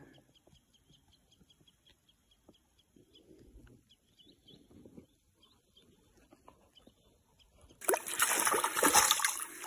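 Near silence with faint, rapid high chirping of a bird. About eight seconds in, loud splashing starts as a trout moves in a landing net in shallow water.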